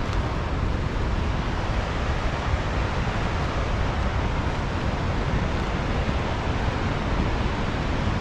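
Steady rushing roar of the Merced River's fast whitewater, with wind buffeting the microphone.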